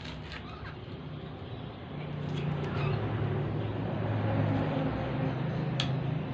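Kitchen knife chopping green onions on a glass cutting board: a few sharp clicks as the blade meets the glass. Under it runs a steady low engine hum that grows louder from about two seconds in.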